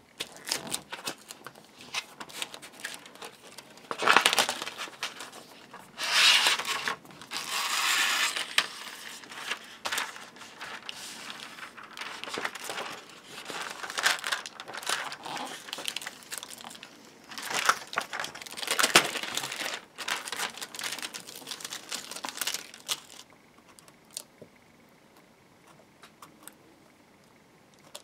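Thin copper foil shielding tape being handled, crinkled and peeled from its paper backing, in an irregular run of crackling, tearing bursts that dies down to faint ticks for the last few seconds.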